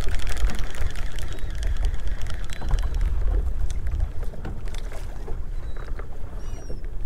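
Wind rumbling on the microphone and water slapping against the hull of a small boat on open water, with rapid light clicks in the first few seconds. A bird gives a few short, high calls near the end.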